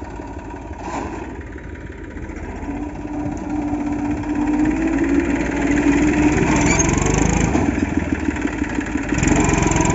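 New Holland 3600 tractor's diesel engine running as the tractor pushes a heap of paddy straw, its note rising a little and growing louder from about three seconds in.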